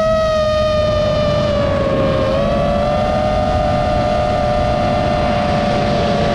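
FPV quadcopter's brushless motors whining steadily, over wind rumble on the onboard microphone. The pitch dips about two seconds in, then rises again and splits into two close tones.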